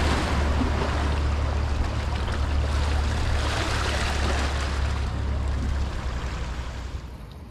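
Wind rumbling on the microphone over a steady wash of surf against the rocks, easing off near the end.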